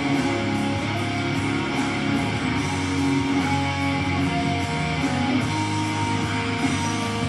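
Guitar music with strummed electric guitar, playing steadily.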